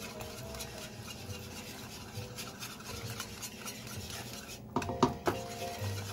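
Wire whisk scraping and stirring around a stainless steel saucepan of thick cheese sauce as the cheddar melts into it, with a few sharp metal clinks against the pan about five seconds in.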